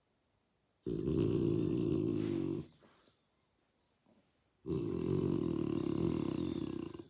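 A sleeping bulldog snoring: two long, loud snores of about two seconds each, the first starting about a second in and the second about halfway through.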